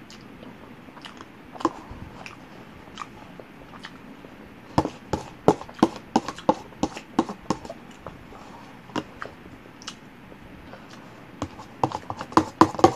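Close-miked chewing of lasagna: short wet mouth clicks, a few scattered, then runs of about four to five a second at around five to seven seconds in and again near the end.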